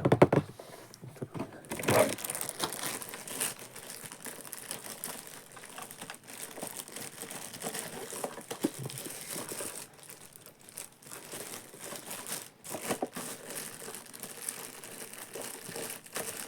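Packaging being handled and unwrapped: irregular crinkling and rustling, with a louder rustle about two seconds in and a few more later on.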